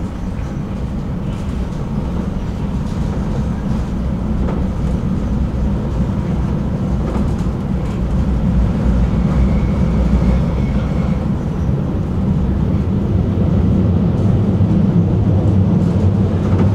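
Tram running along its track: a steady low rumble of wheels and running gear that grows gradually louder, with a faint thin high tone for a couple of seconds midway.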